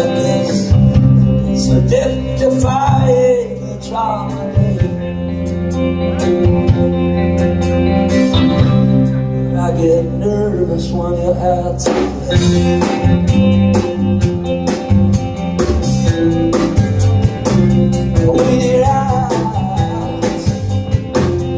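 Live rock band playing, with electric guitar and a man singing into a microphone.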